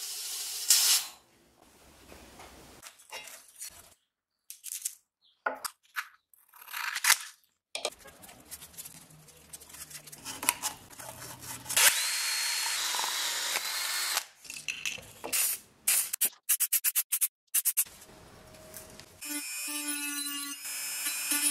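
A string of short power-tool clips with near-silent gaps and brief rubbing and clatter between them. A cordless drill spins sandpaper on a rod for a couple of seconds near the middle, and near the end a rotary tool with a sanding drum runs against the finned cylinder head with a steady whine.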